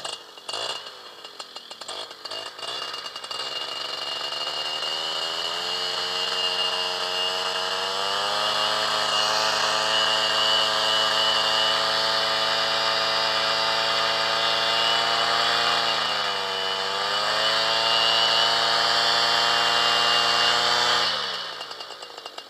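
Small paramotor engine running close by. It revs up over the first few seconds and holds a steady run, sags briefly about three-quarters of the way in, picks up again, then shuts off suddenly near the end.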